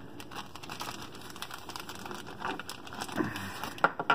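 Hand rummaging in a plastic zip-top bag of wristwatches: the plastic crinkles while the watches give a run of small clicks and clinks against one another, with a couple of sharper clicks near the end.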